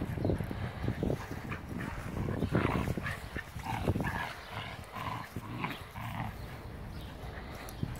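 Two husky-type dogs, an adult and a puppy, playing tug-of-war with a rope: short, irregular dog vocal sounds, with a few brief higher-pitched ones between about three and a half and six seconds in.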